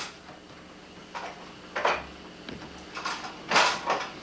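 Dishes and kitchenware being handled at a sink: a few short clatters and scrapes, the loudest about three and a half seconds in.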